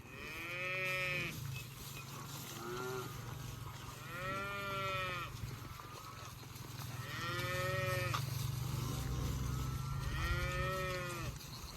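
Cattle mooing while being moved: four long calls and one short one, each rising and then falling in pitch, with a steady low hum underneath.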